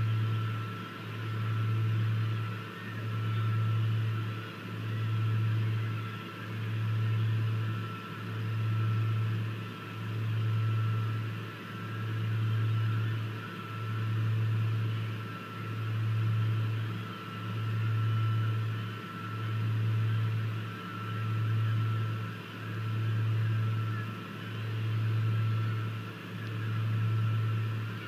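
A low mechanical hum that swells and fades evenly, about once every second and a half, over a faint steady high tone and light hiss.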